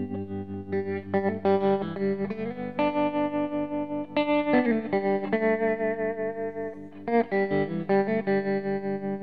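Solo guitar music: held, ringing notes that change every second or so, with a slide down in pitch about four and a half seconds in.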